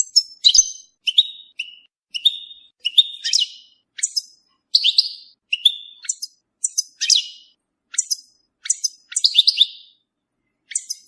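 European goldfinch singing: a quick run of short, sharp twittering phrases, one or two a second, with a brief pause near the end.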